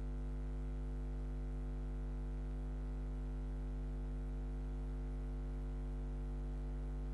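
Steady electrical hum with several overtones, unchanging throughout, typical of mains hum picked up on the broadcast's audio line.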